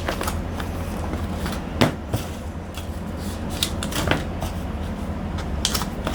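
Handling and packing small items: light knocks, clicks and rustles, with sharper taps about two seconds in, about four seconds in and near the end, over a steady low hum.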